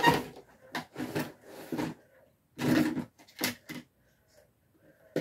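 A series of short knocks and rustles, about seven in the first four seconds, from small objects being handled and set down.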